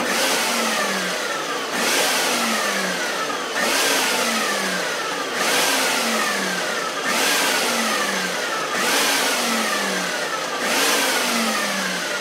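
Food processor motor pulsed seven times in quick succession, chopping riced cauliflower with Parmesan and spices. Each pulse comes about every second and three quarters, with the motor's whine dropping in pitch before the next pulse starts.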